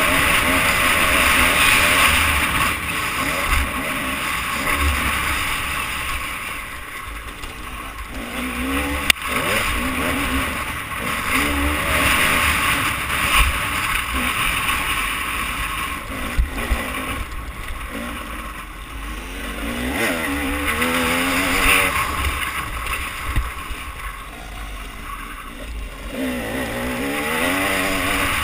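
Motocross bike engine running hard, its pitch repeatedly climbing and dropping as the rider opens and closes the throttle, with heavy wind rushing and buffeting over a helmet-mounted camera's microphone. One sharp knock about nine seconds in.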